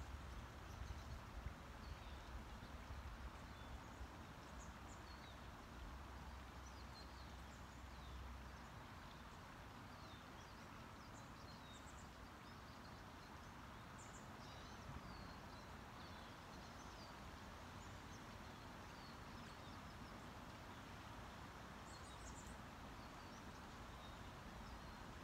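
Faint background noise with scattered short, high bird chirps, and a low rumble during the first several seconds.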